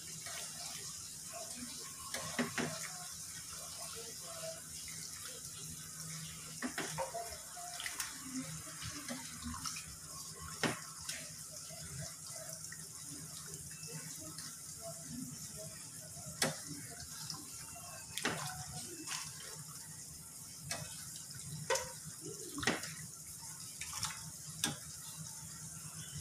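Coconut-milk curry simmering in a non-stick pan on a gas burner, a steady hiss, with scattered taps and scrapes of a spatula against the pan as the coconut milk is stirred constantly to keep it from splitting.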